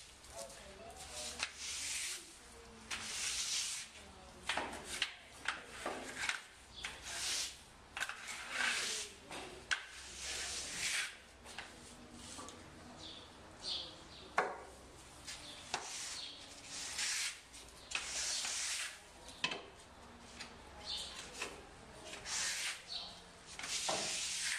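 Irregular rustling and scraping in short bursts about every second, with a few brief high squeaks in between.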